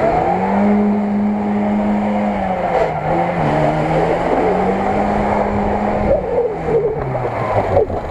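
Lada Niva engine revving hard under load as the car churns through deep mud and water, with the sound of mud churning under the wheels. The revs climb and hold steady, sag briefly about three seconds in, rise again, then drop away near the end.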